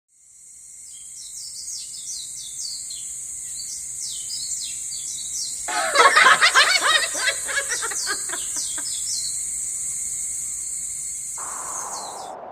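Birds chirping over a steady high-pitched hiss, fading in at the start. About six seconds in comes a louder, dense flurry of calls lasting two to three seconds, and the sound cuts off abruptly at the end.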